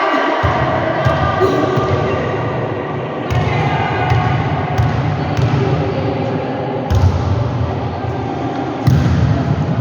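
Volleyball being hit and bouncing on a gym floor: a series of sharp thuds every second or two, over a continuous background of players' voices.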